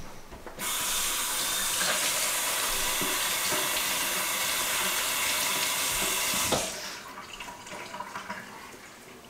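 Kitchen faucet running into a stainless steel sink while hands are washed, turned on about half a second in and shut off after about six seconds.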